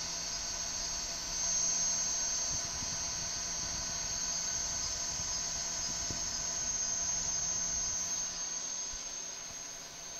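Steady high-pitched whine and hiss with a faint low hum, from a mini CNC laser engraver's electronics and the computer beside it running idle.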